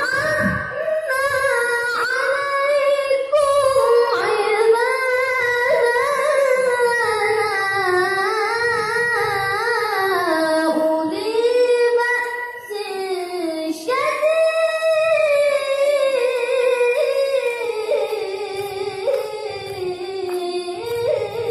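A child qari reciting the Quran in the melodic tilawah style, one high voice holding long ornamented phrases with a wavering, rising and falling pitch, amplified through a microphone and loudspeakers. A new phrase begins about 14 seconds in.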